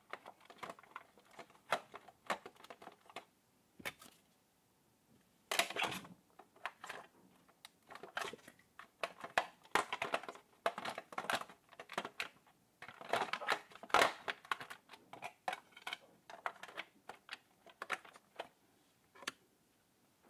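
Hard plastic clicking, tapping and scraping as a battery pack's plug is connected and the pack is pressed into the plastic battery compartment of a toy car, with denser scratchy handling noise twice, about six seconds in and again about thirteen seconds in.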